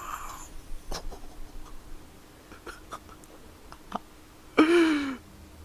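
A few light clicks, then about four and a half seconds in a short vocal sound from a person, falling in pitch. A faint steady hum lies underneath.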